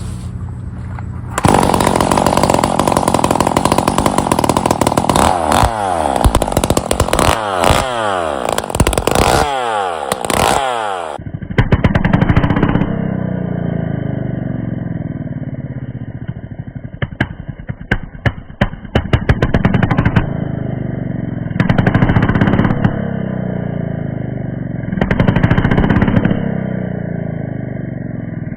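Freshly ported 46 cc Poulan PP4620 two-stroke chainsaw running: held at full throttle from about a second and a half in, with repeated dips and rises in pitch, then dropping to idle about halfway through and revved briefly several times.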